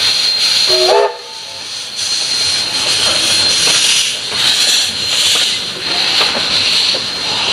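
Ww 644, a steam tank locomotive, hissing loudly as it pulls its train slowly away, steam escaping low around the running gear. A short rising pitched note sounds about a second in, just before the hiss drops sharply; after that the hiss swells and eases in slow pulses.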